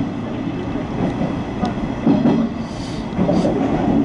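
Nishitetsu electric commuter train pulling out of the station, heard from inside the front car: a steady running rumble with a few light clicks and brief hisses about three seconds in.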